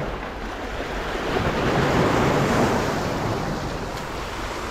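Sea surf washing in over shoreline rocks, swelling to its loudest about two seconds in and then easing off.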